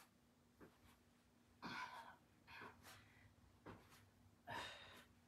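A person breathing hard during mountain climbers: a handful of short, quiet exhales, one every second or so.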